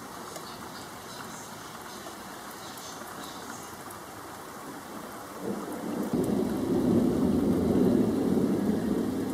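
Steady rain hissing, then about five seconds in a long roll of thunder builds up and rumbles on, loudest near the end.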